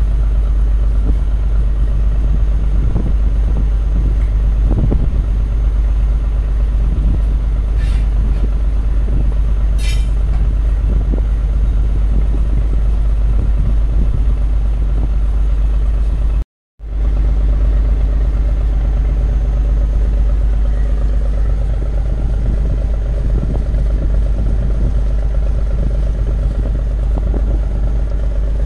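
Boat engine running steadily, a continuous low drone heard on board. The sound cuts out for a moment about two-thirds of the way through, then resumes.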